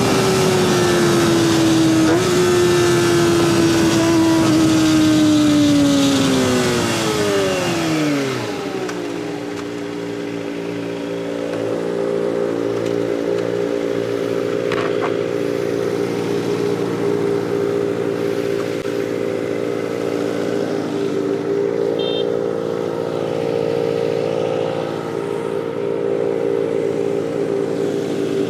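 Kawasaki ZX-25R's 250 cc inline-four through an aftermarket DX Generation Sphere exhaust, its high-revving note falling steadily as the bike slows, with wind rush. About nine seconds in, the revs settle into a steady idle that holds for the rest.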